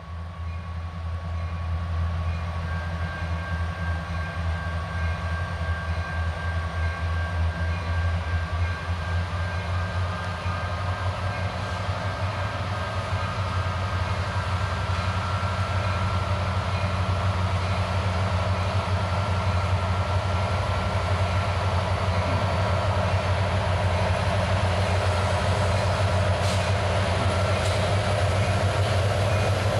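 Freight train's lead diesel-electric locomotives, an EMD SD90MAC rebuild with an EMD SD70M-2 and a GE C44-9W, approaching at low speed: a deep, steady engine drone that grows gradually louder, with a thin high whine over it.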